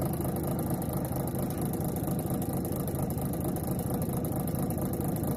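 Car engine idling while stopped, heard from inside the cabin as a steady low hum.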